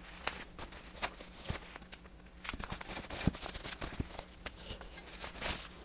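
Plastic packaging bag crinkling and rustling as it is handled and opened, in many irregular small crackles.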